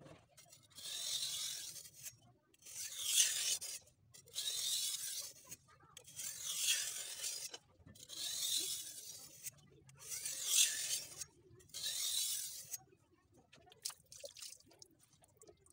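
Steel knife blade being drawn by hand across a wet whetstone of around 1000 grit: seven long, even sharpening strokes of about a second each, then a few short, lighter scrapes near the end.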